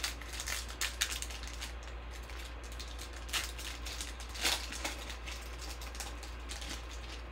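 Foil wrapper of a Panini Prizm basketball card pack being torn open and crinkled by hand: a run of irregular crackles, loudest about three and a half and four and a half seconds in.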